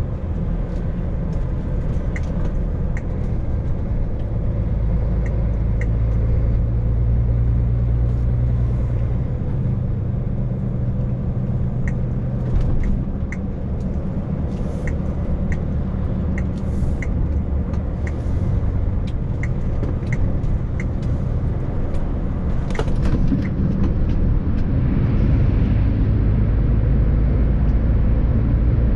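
Heavy lorry's diesel engine running under way with road noise, heard from inside the cab, its pitch shifting slowly with the road, with scattered light clicks.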